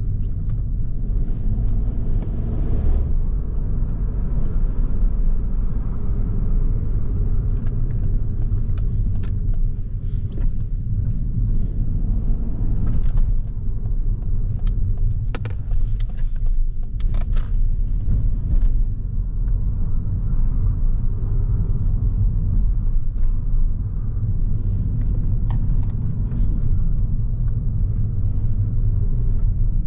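Ford Focus 1.0 EcoBoost Hybrid three-cylinder car on the move, giving a steady low engine and road rumble. Scattered short sharp clicks and knocks come through, thickest around the middle.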